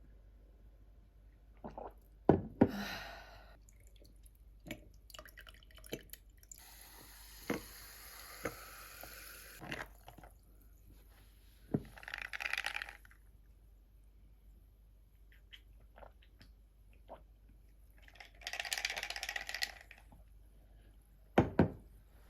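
Tableware knocking on a table: a sharp knock near the start and a double knock near the end. In between, a drink is poured into a glass three times, each a short run of hissing.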